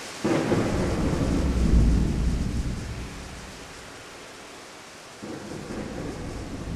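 Thunderstorm: steady rain with a sudden clap of thunder about a quarter second in, rumbling and dying away over about three seconds, then a second, softer rumble starting about five seconds in.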